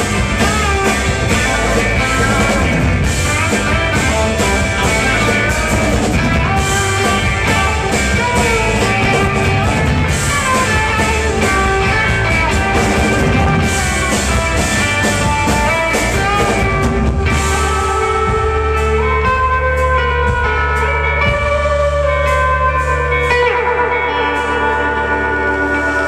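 Live psychedelic rock band playing: jangly electric guitar over drums. About two-thirds of the way in, the drum hits thin out, leaving ringing guitar lines over a held low note.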